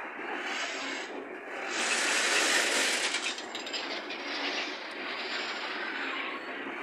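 A freight train of boxcars rolling past close by, its wheels running and rattling steadily on the rails. The noise swells louder about two seconds in, with a few sharp clicks just after the middle.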